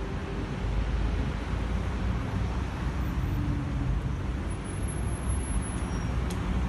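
Steady low background rumble with hiss, of the kind made by distant traffic.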